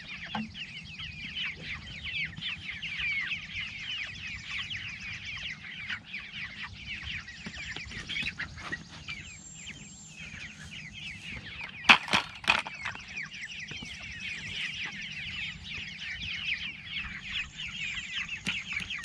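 A flock of four-week-old meat chickens peeping continuously, many short falling chirps overlapping. About twelve seconds in, two or three sharp knocks stand out above them.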